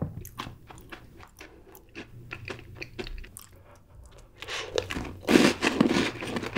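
Close-miked Oreo cookie being bitten and chewed: faint scattered crackles at first, then dense, loud crunching through the last two seconds or so.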